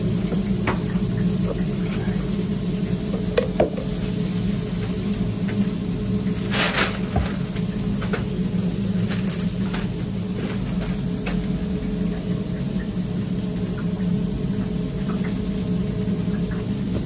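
Burger food-truck kitchen at work: a steady low machine hum under scattered light clicks and knocks of cooking utensils, with a short hiss about six and a half seconds in.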